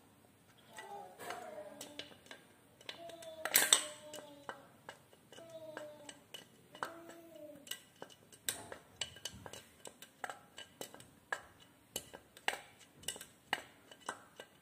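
Pliers clicking and scraping against the metal screws and body of a Ka-band VSAT transceiver as it is taken apart, in sharp, irregular metallic clicks. A few brief voice-like sounds come in the background in the first half.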